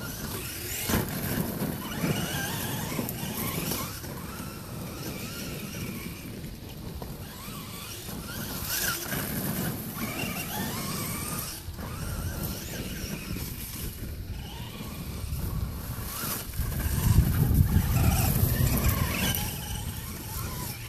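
Traxxas E-Maxx RC monster truck driving on a dirt track. Its 1900kv six-pole brushless motor and drivetrain whine, the pitch wavering up and down with the throttle.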